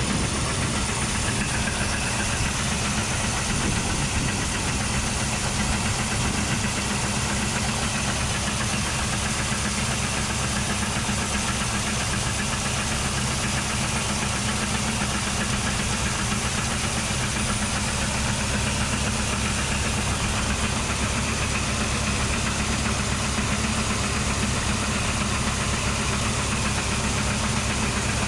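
Brandt grain auger running steadily, a constant mechanical drone with a low hum, as shelled corn pours from its spout into a semi grain trailer.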